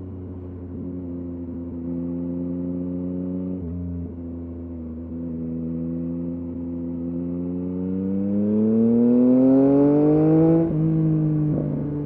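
2023 Yamaha MT-09's 890 cc inline-three running through a LeoVince LV Race exhaust, holding a steady note while cruising. About seven seconds in it pulls up in pitch and loudness under acceleration for a few seconds, then the note drops sharply on an upshift near the end.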